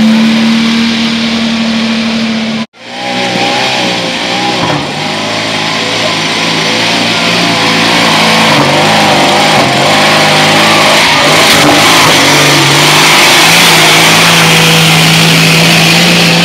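Off-road Jeep engines running under load on a steep dirt hill climb, with a steady drone and engine pitch rising and falling in the middle as the throttle is worked. The sound drops out sharply for a moment about three seconds in.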